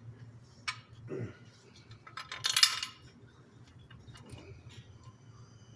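Small metal parts clinking and rattling as they are handled, with a louder jingling clatter about halfway through.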